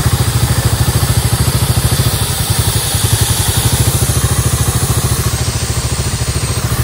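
Royal Enfield Himalayan 450's single-cylinder engine running steadily at low revs, an even pulsing beat of about ten firings a second with no revving.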